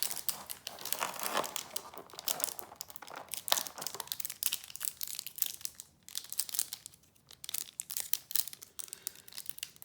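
Plastic packaging crinkling and crackling as it is handled, a dense run of sharp crackles that thins out for a moment about six seconds in before picking up again.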